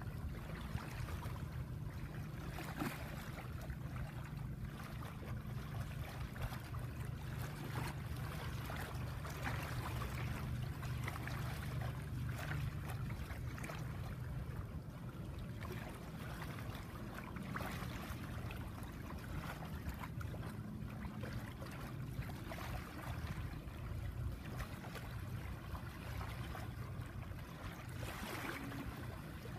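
Shallow seawater lapping and rippling over a sandy shore at the tide's edge, with a steady low rumble underneath.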